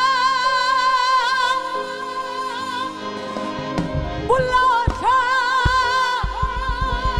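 Woman singing a Punjabi Sufi song live with a band, holding long notes with heavy vibrato. Near the end a fast, even drum beat comes in under her voice.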